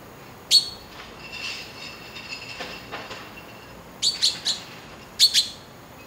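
Taiwan blue magpie giving short, loud, harsh calls: one, then a quick run of three about four seconds in, then two more. Fainter chirping from other birds comes in between the calls.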